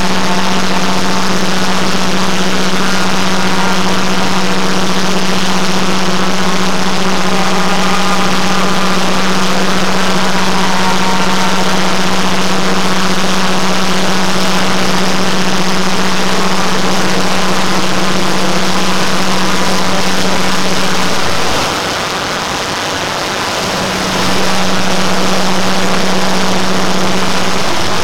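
Dense, steady wall of noise from hundreds of sped-up video soundtracks playing on top of one another, blended into a jet-engine-like roar with a loud steady hum. The hum and loudness drop out for about two seconds about three-quarters of the way through, and again just at the end.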